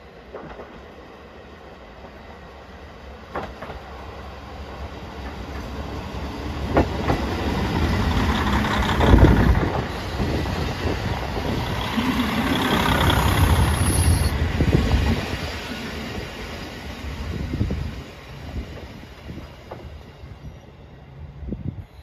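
Diesel train on a rural single line running past. Its sound builds over several seconds, stays loud for about six seconds, then fades, with a few sharp clicks of wheels on rail.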